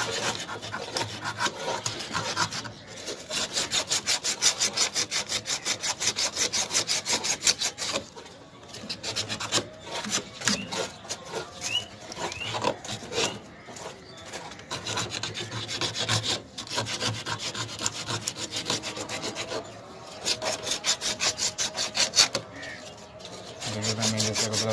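Abrasive scouring of a metal refrigerant pipe on a chest deep freezer: quick back-and-forth scraping strokes, several a second, in bouts with short pauses. The pipe is being cleaned to bare metal so the brazed joint will not leak.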